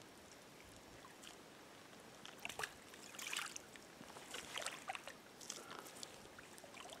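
Irregular splashing and sloshing in shallow stream water, starting about two seconds in and lasting a few seconds, while a hooked trout is brought to the net, over the steady hiss of the running stream.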